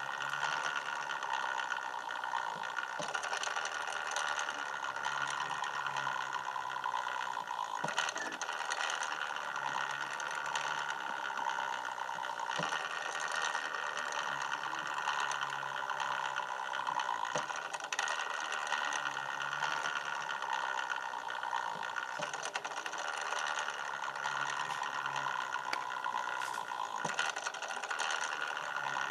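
A small motor running steadily, a continuous mechanical whir with a few faint clicks scattered through it.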